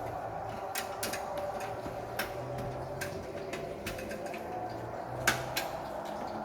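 Light metallic clicks and taps of a motherboard I/O shield being pressed into the rear cutout of a PC case, with one sharper click about five seconds in, over a steady hum.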